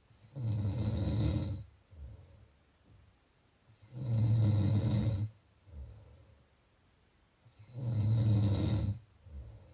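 A person snoring: three loud snores about four seconds apart, each followed by a softer, shorter breath.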